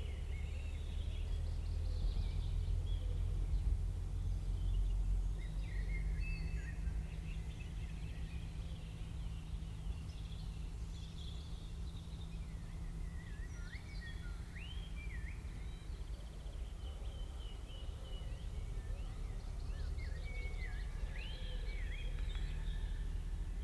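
Faint bird chirps and short whistled calls coming and going over a steady low background hum.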